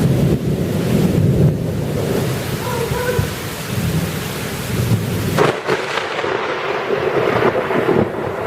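Thunder rumbling through heavy rain. About five seconds in, the deep rumble cuts off abruptly, leaving the hiss of rain.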